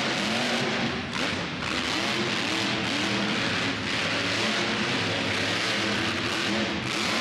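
Monster truck engine revving hard, its pitch rising and falling repeatedly as the driver works the throttle, with a brief dip about a second in.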